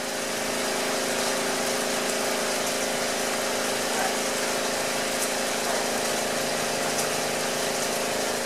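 Heavy rain pouring down around a standing Orenstein & Koppel narrow-gauge steam locomotive, with a steady hiss and an even hum from steam escaping at the locomotive's front end.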